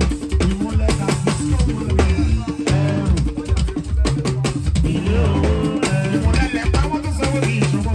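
Live Yoruba tungba/juju band music: talking drums and other hand percussion playing a steady groove over a deep pulsing bass line, with a man singing into a microphone over it.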